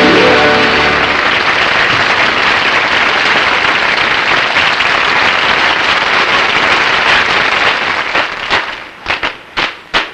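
Studio audience applauding as the last sung note of a song fades out, the applause thinning about eight seconds in to a few separate sharp taps.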